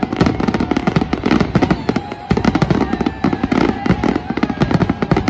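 Fireworks display in a dense barrage: many shells bursting at once, giving a rapid, continuous run of bangs and crackling.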